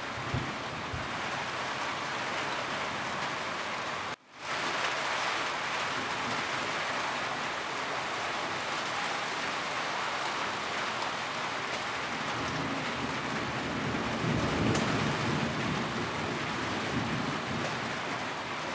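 Steady rain falling on a roof. About four seconds in, the sound cuts out for a split second and then comes back, and a low rumble swells and fades about two-thirds of the way through.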